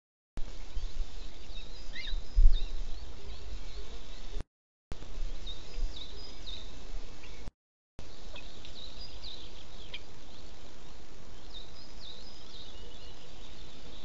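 Small birds chirping with short, high calls over a steady background hiss, as picked up by an outdoor nest microphone. There is a low rumble in the first few seconds, and the sound cuts out completely three times for a moment.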